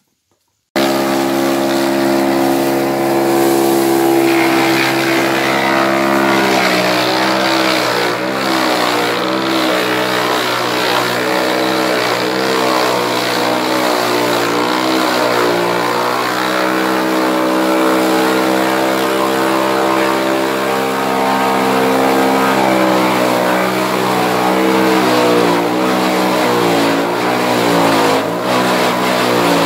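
Forage chopper running, chopping sugarcane and napier grass fed into it by hand and blowing the chopped forage out of its spout. It is a loud, steady machine hum whose pitch dips briefly now and then as bundles load it. It cuts in abruptly just under a second in.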